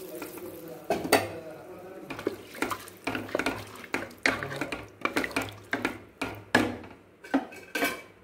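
A spatula stirring rice, peas and water in an aluminium pressure cooker, scraping and knocking irregularly against the pot's sides and bottom.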